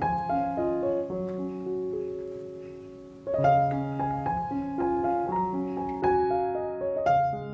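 Background piano music: a gentle melody of struck notes over low sustained notes, the phrase fading out and starting over about three seconds in.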